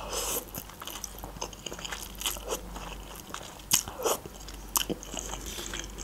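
Close-miked eating sounds of a mouthful of instant ramen noodles being taken in and chewed, with many short sharp mouth clicks scattered throughout.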